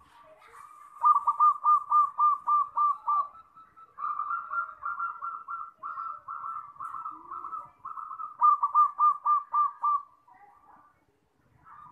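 Zebra dove (perkutut) cooing: three runs of quick, evenly spaced staccato notes, about three or four a second, each run lasting two to four seconds, then a pause near the end.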